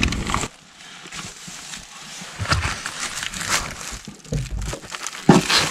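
Rustling and crinkling of nylon down jackets and bedding as people shift around, with scattered knocks from the handheld camera being moved and one louder knock near the end.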